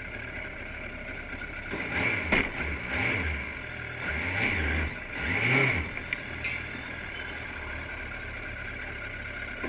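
Car engine and road noise heard from inside the cabin while driving: a steady hum, with a few brief rises and falls in the engine note between about two and six seconds in.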